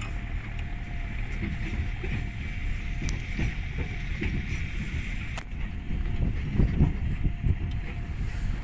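A farm vehicle's engine running steadily, with wind buffeting the microphone and a faint steady whine over it.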